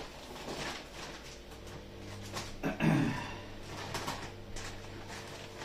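Plastic mailing bag crinkling and rustling as it is handled and cut open with scissors, with a louder knock about three seconds in as the parcel is shifted.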